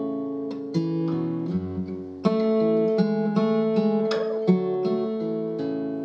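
Instrumental background music led by an acoustic guitar playing plucked notes and chords.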